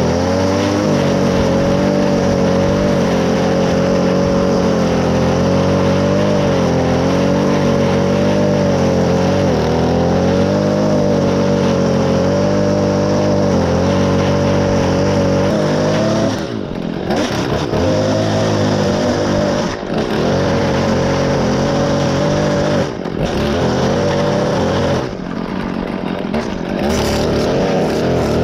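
Stihl FS 55R two-stroke gas string trimmer running at a steady high throttle while edging grass along concrete. About halfway through, the throttle is let off several times, the engine dropping briefly before revving back up.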